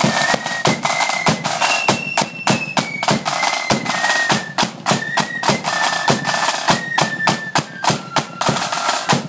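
Marching flute band playing a high, fast-stepping flute melody over snare drums and a bass drum beating a dense, driving rhythm.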